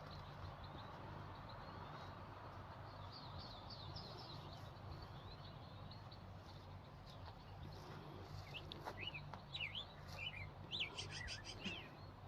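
Small birds chirping and twittering over a steady faint background hiss; the calls are sparse at first and become busier and louder in the last few seconds.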